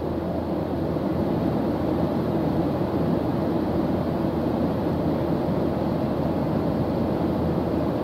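Jet airliner cabin noise in cruise flight: a steady, even roar of engines and rushing air, heaviest in the low range with a low hum underneath.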